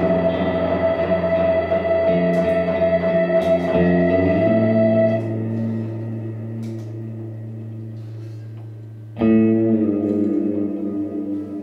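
Free improvised ensemble music led by electric guitars through effects: layered, sustained tones that thin out and fade, then a new chord struck about nine seconds in.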